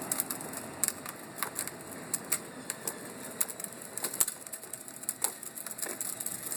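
Child's plastic ride-on toy truck moving over pavement: irregular sharp clicks and crunches, several a second, with no steady tone.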